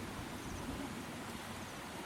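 Steady outdoor background noise: an even hiss with a low wind rumble.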